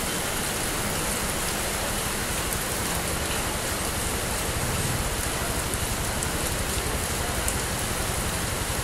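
Steady rain falling on the street and surfaces, with a low vehicle engine hum from traffic swelling beneath it about halfway through.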